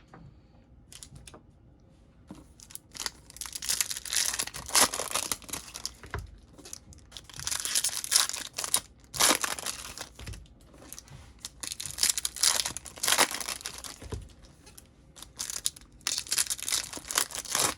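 Topps Chrome trading-card pack wrappers being torn open and crinkled, in repeated bursts of tearing and rustling that start about two seconds in.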